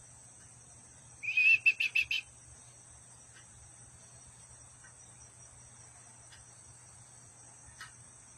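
Steady high-pitched insect drone, with a loud rapid run of about six chirps starting about a second in and lasting about a second.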